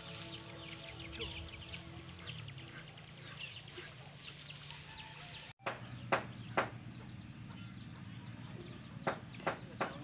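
Evening insects trilling steadily on one high note. About halfway through, a brief dropout is followed by a few sharp clicks.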